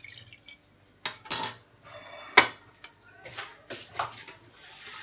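Kitchen dishes and a utensil clinking: about six sharp clinks against ceramic and glass bowls, the loudest ones a little over a second in and around the middle. Near the end a steady hiss of running water starts.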